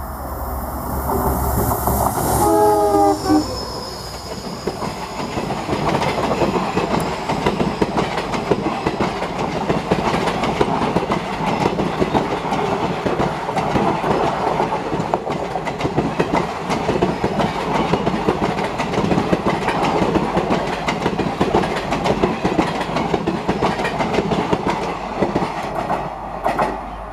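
Express train passing at speed. About three seconds in, the locomotive sounds a short horn whose pitch drops as it goes by. Then a long run of coaches rumbles and clatters over the rail joints, falling away as the last coach passes near the end.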